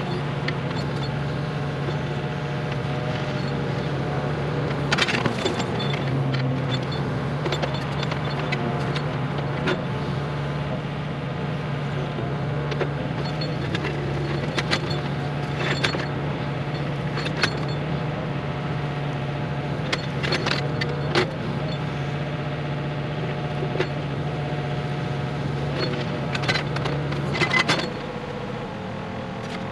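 An engine runs steadily under scattered sharp knocks and clatter, and cuts off near the end.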